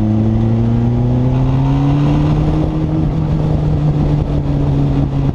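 Turbocharged Honda CBR1100 inline-four engine of a Sylva Striker, heard from its open cockpit, pulling with a slowly rising pitch for about three seconds and then holding steady.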